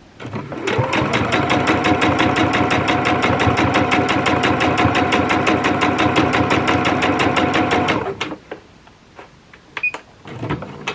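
Electric sewing machine stitching a seam at a steady fast pace, with an even rapid needle rhythm over the motor's whine; it starts just after the opening and stops about eight seconds in, followed by a few light clicks.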